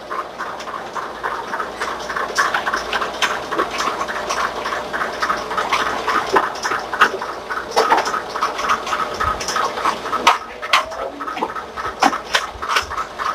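Busy restaurant kitchen din: a continuous clamour with many small clicks and clatters, like trays and utensils being handled.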